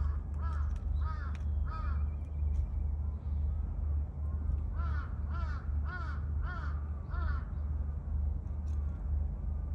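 A bird giving short cawing calls about half a second apart, in two runs of about five: one in the first two seconds and another about five seconds in. A steady low rumble runs underneath.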